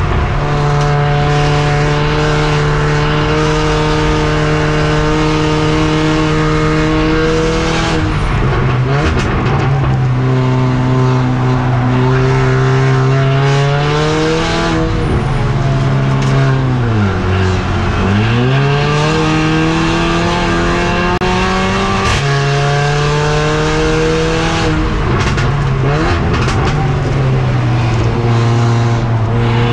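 Mercedes CLA45 AMG race car's turbocharged four-cylinder engine heard from onboard, running hard. The engine note holds and steps several times, then dips low about halfway through before climbing again.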